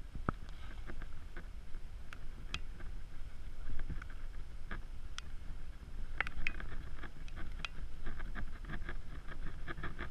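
Low steady rumble with scattered clicks and crunches of gravel and loose stones on a rocky dirt track. The crunching grows denser about six seconds in.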